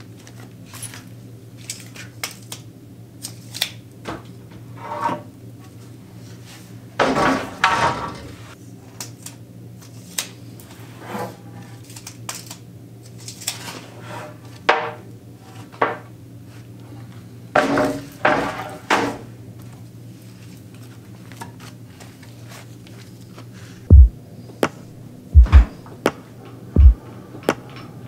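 Rough white oak boards being lifted and shifted on a lumber stack: scattered wooden knocks and clatter, with two longer stretches of boards scraping against each other, over a steady low hum. A few heavy low thumps come near the end.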